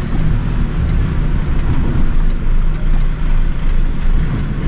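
Diesel engine of an empty articulated HGV pulling away slowly, a steady low rumble heard from inside the cab.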